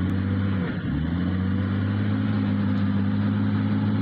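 Heavy earthmoving machine's engine running steadily, its pitch dipping briefly a little under a second in and then climbing back.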